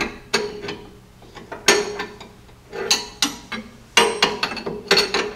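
Hand wrench working the lock collar on the end of an adjustable steel track bar to tighten it: a series of irregular, sharp metallic clinks and clicks with a short ring.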